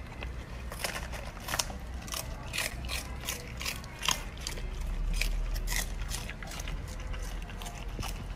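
Golden retriever puppy chewing napa cabbage leaves: a series of crisp crunches, irregular, roughly two a second.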